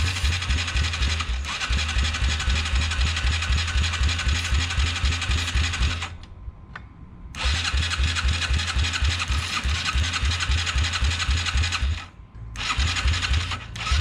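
Yamaha TTR225 single-cylinder engine being turned over on its electric starter in three tries: a steady, rhythmic cranking that stops briefly about six seconds in and again about twelve seconds in, each time starting up again. This is a first attempt to get the freshly rebuilt engine to fire.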